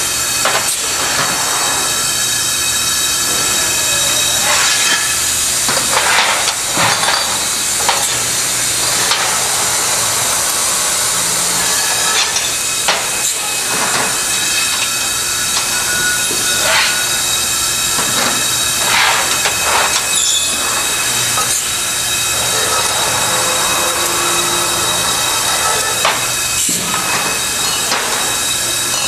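Bottling equipment running with a steady hiss and whine, with knocks and clinks every few seconds as bottles are handled.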